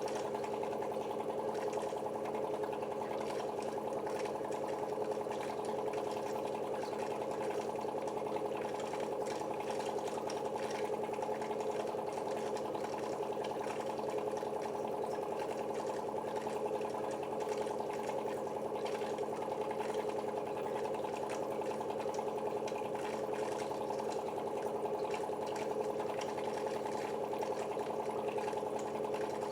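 KENT reverse-osmosis water purifier running: a steady hum of several tones from its booster pump motor, with a faint irregular trickle of water through the filters.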